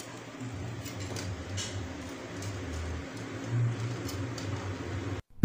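Metal ring-light tripod stand being handled as its legs are opened out: faint clicks and low rumbling knocks. It cuts off just before the end.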